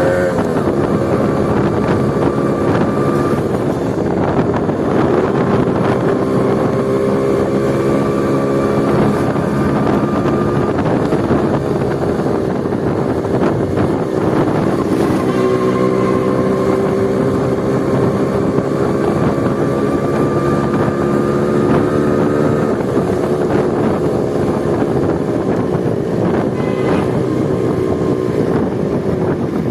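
Small motorcycle engine running hard at speed, with its exhaust open because the dB killer has been removed. The engine note climbs slowly and falls back several times, and wind buffets the microphone.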